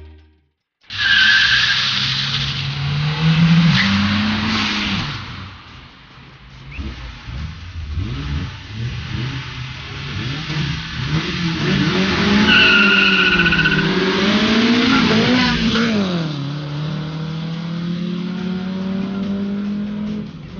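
A car driven hard: the engine revs up and down again and again, with tyre squeals about a second in and again about twelve seconds in, and a steadier engine note over the last few seconds.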